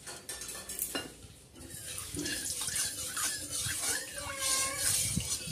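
Steel spatula scraping and clinking against the inside of a steel kadai as it spreads the oil around the pan, with a sharp clink about a second in.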